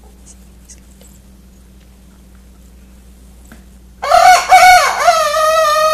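Silkie rooster crowing once, loud, starting about four seconds in: a few short broken notes and then one long held note.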